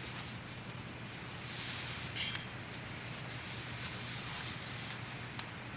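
Quiet background hiss with a faint low hum, broken by a soft rustle about two seconds in and a few faint clicks.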